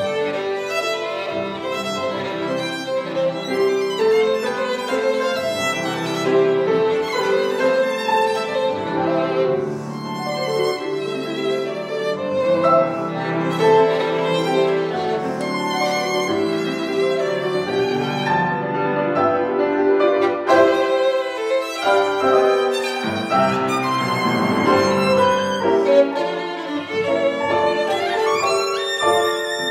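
Violin and piano playing classical chamber music together, the violin carrying a busy, continuous line with quick runs of notes over the piano.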